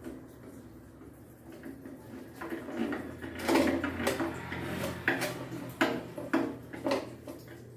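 Hand tools and metal parts clinking and knocking during the reassembly of a washing machine drum: a quiet start, then an irregular series of sharp clatters from a couple of seconds in.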